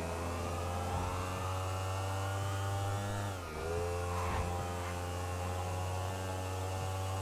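Video-game sport motorcycle engine running at a steady pitch over a constant low hum; about halfway through the pitch dips and then climbs back up as the revs fall and rise again.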